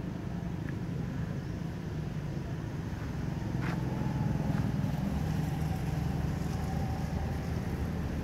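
Low, steady drone of a running motor-vehicle engine, with one short click a little under halfway through.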